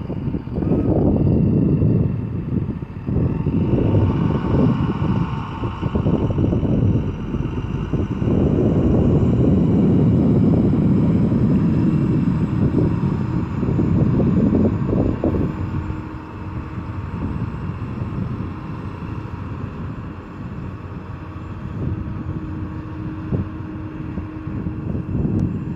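Diesel engine of heavy earthmoving machinery running with a heavy, uneven rumble, loud for the first two-thirds and then dropping to a lower, steadier drone with a faint hum.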